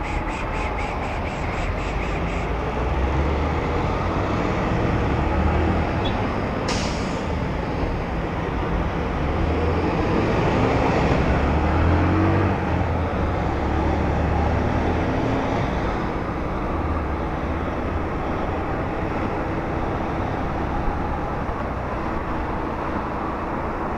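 Motorcycle running through city traffic, its engine rumble rising and falling over steady wind and road noise on the bike-mounted camera. A rapid ticking sounds in the first couple of seconds, and a short hiss about seven seconds in.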